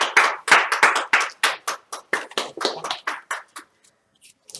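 Applause: hands clapping, thinning out and stopping about four seconds in.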